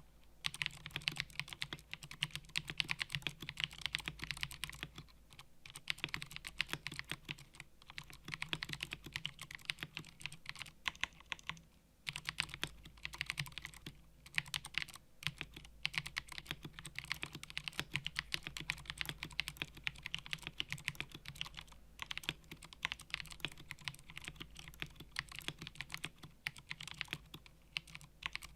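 Typing on a custom mechanical keyboard with Cherry MX switches: a fast, continuous run of key clacks, broken by short pauses several times.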